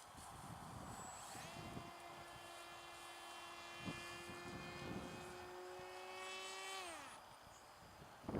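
Electric motor and propeller of an RC flying wing in flight: a steady whine that comes in about a second and a half in, holds for about five seconds, then winds down and stops near the end. Wind rumbles on the microphone throughout.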